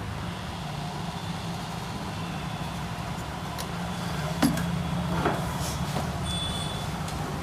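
Steady low background hum with a few light clicks, and a short, faint high-pitched beep a little past six seconds in.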